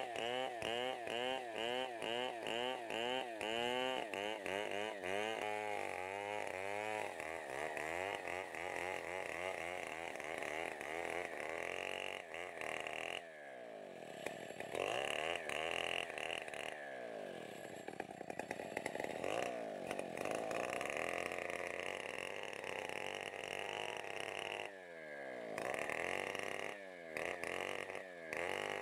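STIHL 070 chainsaw, a big two-stroke, running while ripping a log into planks: at first the engine note rises and falls in quick pulses several times a second, then it runs more steadily. It eases off about thirteen seconds in and again near twenty-five seconds, with short quick revs near the end.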